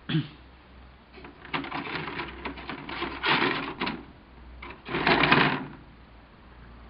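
Plastic model-kit sprues rattling and scraping against one another and the cardboard kit box as they are handled, in two stretches of clatter, the second, about five seconds in, the loudest.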